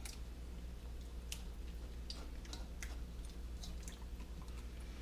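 Scattered small clicks and soft wet squishes of raw fish being handled in a kitchen, over a steady low hum.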